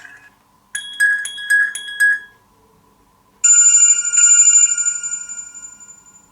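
BQ Aquaris 4 smartphone playing its built-in tones: a quick run of short, bright notes, then after a pause a single bell-like chime that starts loud and fades away.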